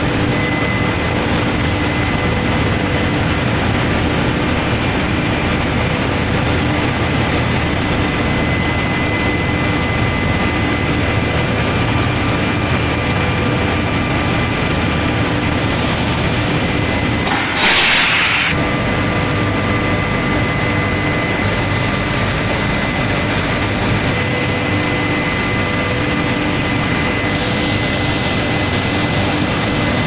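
Running induction heat-treatment line for steel bars: steady machine noise with a constant high whine and lower hum. A little past halfway, a sudden loud hiss lasts about a second.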